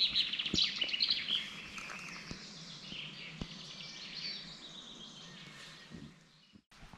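Small birds chirping and singing in woodland, busiest at first and thinning out, with a few faint clicks; the sound dies away to near silence shortly before the end.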